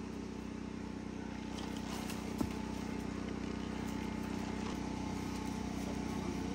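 An engine idling steadily, a low even hum, with one faint click about two and a half seconds in.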